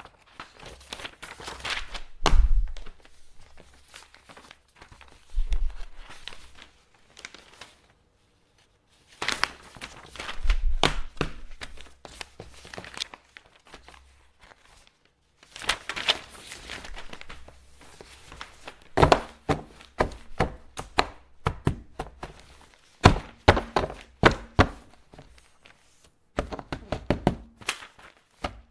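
Sheets of paper being handled and folded: bursts of rustling and crinkling with sharp taps and a few dull thuds, broken by short pauses.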